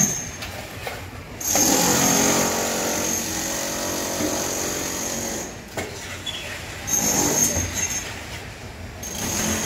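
Drum concrete mixer running and tipping wet concrete into a steel wheelbarrow, with a mechanical grinding hum and a high metallic hiss. It is loudest for a few seconds starting about a second and a half in, and surges again briefly later.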